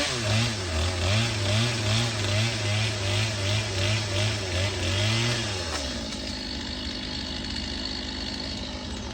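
Stihl MS 250 C two-stroke chainsaw running, its engine pitch wavering up and down over and over, then settling to a steadier, quieter run about six seconds in.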